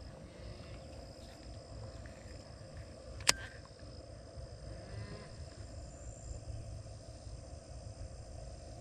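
Quiet pond-side ambience: a steady high drone of insects over a low wind rumble, with one sharp click about three seconds in and a faint distant animal call about halfway through.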